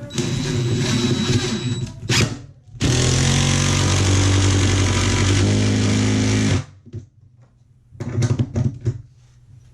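Power drill driving screws down through the subfloor layers. A run of about two seconds, then a longer steady run of nearly four seconds that stops abruptly, then a few short bursts near the end.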